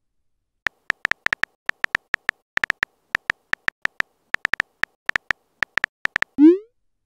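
Short identical electronic key beeps from a phone's on-screen keyboard, one for each letter typed, at an uneven pace of about five a second. Near the end comes a short upward-gliding swoop.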